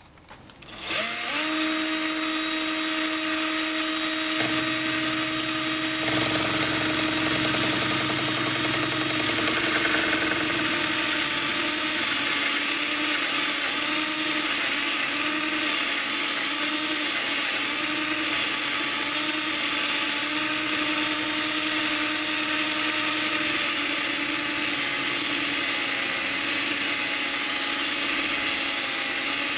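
Cordless drill motor running steadily, driving a toolpost drill on a mini lathe as a short 5 mm drill bit bores a cross hole through a brass handle. It starts about a second in, and its pitch wavers from time to time as the bit cuts.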